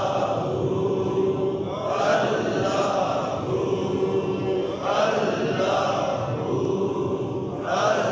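Men's voices chanting a short devotional phrase in unison, Sufi dhikr style, with each phrase held on a steady note. A new repetition starts about every three seconds.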